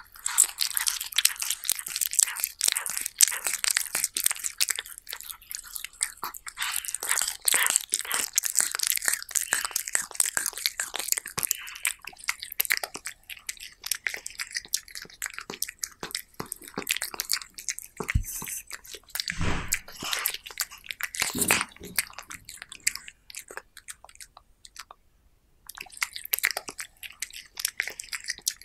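Cat chewing raw meat, close-miked: a dense stream of small biting and chewing clicks, busiest in the first half, with a few dull thumps past the middle and a brief pause about three-quarters of the way through.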